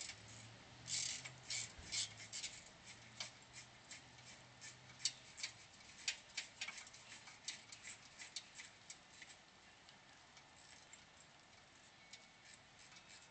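Faint, irregular sharp clicks and ticks of hand tools and hardware being worked on a car's front-mount intercooler during fitting, thinning out after about ten seconds.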